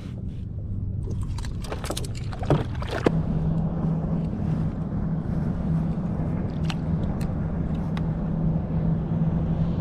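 A run of clicks and knocks during the first few seconds, then a steady low motor hum from about three seconds in.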